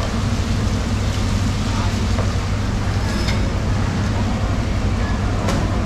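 Steady background din of a fish-market hall: a constant low machinery hum under a noisy wash, with faint voices and a few small sharp knocks and clicks from the cutting work.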